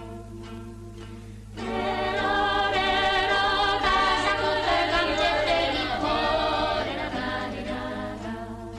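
Choir singing on an old film soundtrack, swelling louder about one and a half seconds in, over a steady low hum.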